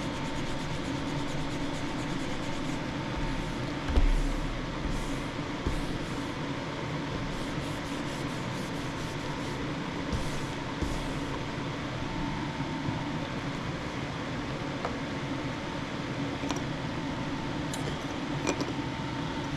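Steady whir of a fan with a faint constant whine above it, a dull thump about four seconds in and a few light clicks near the end.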